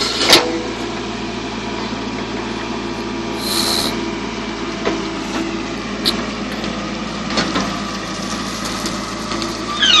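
JCB 3DX backhoe loader's diesel engine running steadily under load while the backhoe digs, with a sharp knock just after the start, a few lighter knocks of the bucket and arm, and a short falling squeal near the end.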